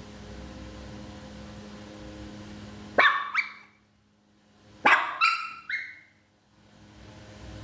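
Small Shih Tzu–type dog barking sharply, twice about three seconds in and three more times about two seconds later. A steady appliance hum runs under the quieter stretches.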